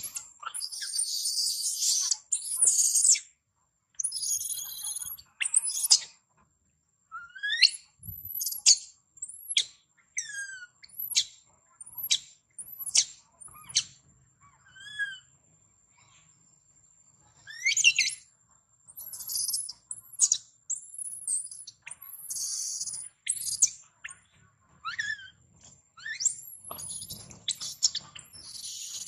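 Baby long-tailed macaque screaming: repeated high-pitched squeals and shrill calls, many sliding sharply in pitch, coming in clusters with short pauses between.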